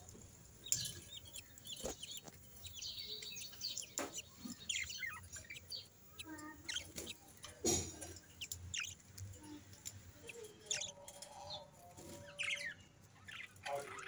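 Budgerigars chirping in short, scattered calls, with a few sharp knocks, the loudest about a second in and just before the eight-second mark.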